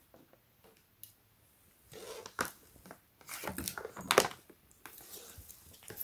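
Scattered rustling and crinkling handling noises as a flexible LED light strip and its cable are moved about over cardboard boxes. They are faint for about the first two seconds, then come as irregular short rustles and clicks.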